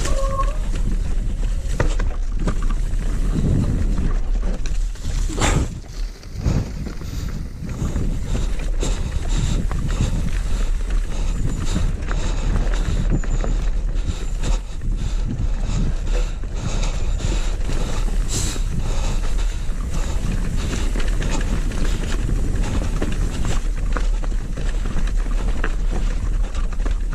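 Wind buffeting the microphone over a steady rumble, with many small rattles and knocks from a ride down a rocky trail.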